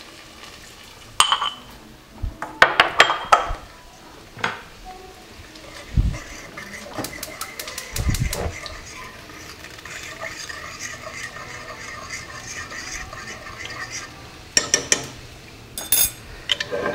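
Metal utensils clinking and knocking against a pot while a liquid sauce is stirred. The clinks come in clusters in the first few seconds and again near the end, with a quieter stretch between.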